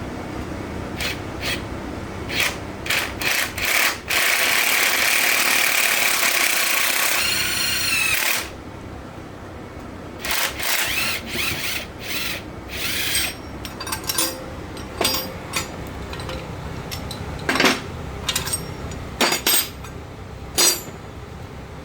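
Handheld power tool driving a socket on the bolt of a shop-made bearing puller, drawing the bearing race off an RTLO truck transmission shaft. Short trigger bursts at first, then one steady run of about four seconds that rises in pitch near its end, followed by more short bursts and sharp metal hits.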